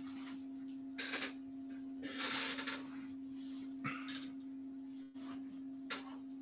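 A steady low hum, held at one pitch, with several short hissing noises over it; the loudest come about a second in and between two and three seconds in.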